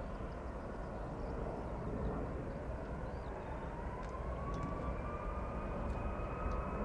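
Four Rolls-Royce Trent 500 turbofans of an Airbus A340-600 spooling up for takeoff: a steady rumble, with a whine that rises in pitch from about two seconds in and then holds.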